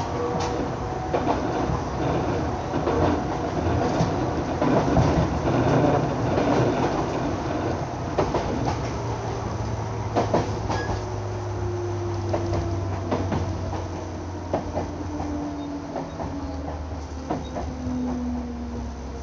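JR 205 series electric train running: wheels clicking over rail joints with a steady rumble. In the second half a low hum sets in, and a whine glides downward in pitch while the sound eases off as the train slows.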